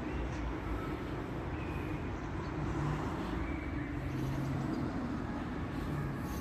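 Steady low rumble of city street traffic, with faint low hums coming and going.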